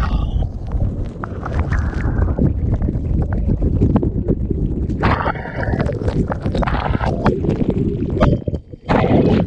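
Muddy water rushing and splashing under a rider sliding fast down an inflatable water slide, with wind buffeting the microphone. Near the end, a loud splash as the rider plunges into a muddy pool.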